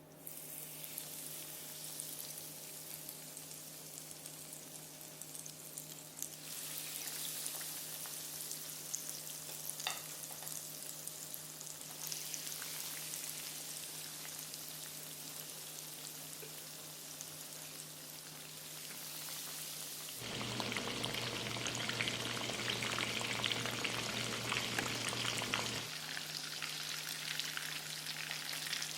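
Food frying in hot oil in a pan: a steady sizzle with fine crackling, louder for several seconds about two-thirds of the way through.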